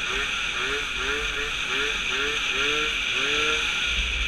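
Tuned 70cc two-stroke scooter engine with an aftermarket expansion exhaust running steadily under way, mixed with wind noise on the microphone that swells near the end.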